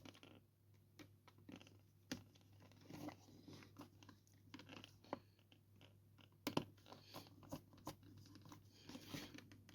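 Faint irregular clicks and scratching of a small Torx screwdriver turning tiny screws into the case of a Garmin GPSmap 60CSx handheld GPS, with a sharper click about six and a half seconds in.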